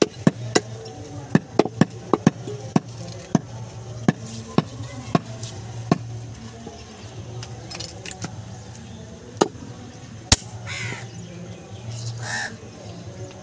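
Heavy cleaver chopping goat meat on a wooden log chopping block: quick sharp strikes, many in the first six seconds, then a few spaced ones, the loudest about ten seconds in.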